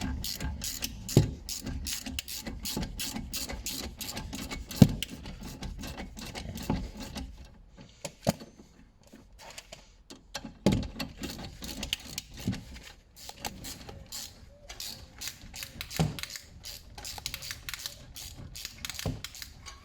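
Hand ratchet clicking in rapid runs as the 7mm Allen-head caliper bolts on a BMW E60 are unscrewed, with a few louder knocks of tools on metal.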